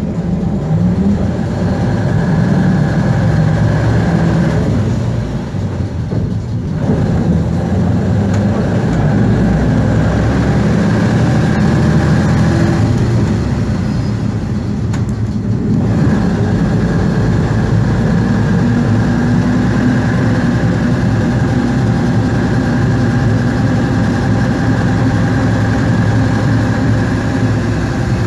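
Jelcz 272MEX bus's Škoda 706 RT six-cylinder diesel engine running under way, heard from inside the passenger cabin, with a steady whine above the engine note. The engine note eases off briefly twice, around five and again around thirteen seconds in.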